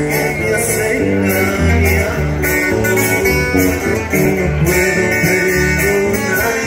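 Live band music amplified through a PA: electric guitars, bass guitar and drums playing loud with a steady beat.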